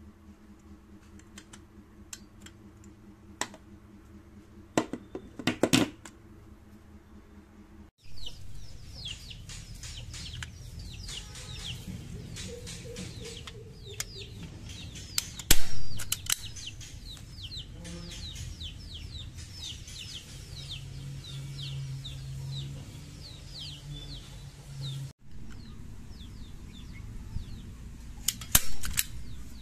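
Hand-operated spring staple gun (INGCO 3-in-1) firing staples into wood: several sharp metallic snaps, the loudest about halfway through and a quick pair near the end, with lighter clicks from handling the gun. Birds chirp through the middle stretch.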